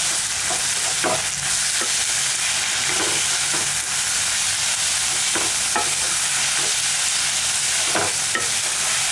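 Onions, tomatoes and spice powders frying in oil in a nonstick pan, a steady sizzle, while a wooden spatula stirs the masala with occasional scrapes and knocks against the pan.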